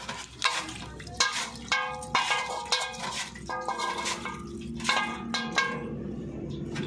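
Small metal parts clinking and scraping against each other as they are handled: an irregular series of sharp clinks that ring briefly.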